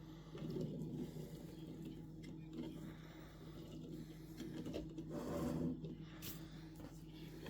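A small mechanism whirring over a steady low hum, getting louder and rougher for a moment about half a second in and again around five seconds in.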